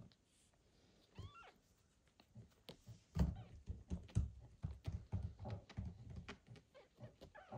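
A newborn kitten gives a short, high squeak about a second in and another near the end. Between them come close, wet clicks and soft thumps as the mother cat licks and grooms it.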